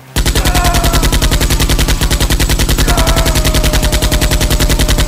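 Machine-gun fire sound effect: a rapid, even string of shots, about ten a second, that starts abruptly and cuts off sharply, laid over a toy blaster being fired. Two faint falling whines sound under it, early on and again about three seconds in.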